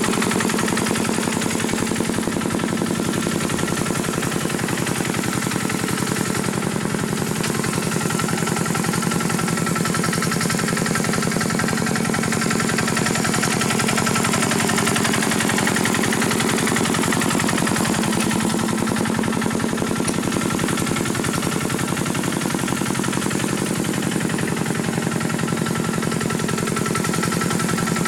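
The engine of a rice-harvesting Khmer tractor running steadily, with a rapid, even chugging beat.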